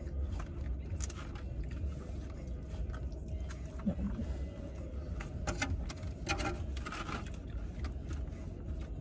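Eating sounds: a plastic fork clicking and scraping in a plastic salad container, with chewing, over a steady low rumble inside a car.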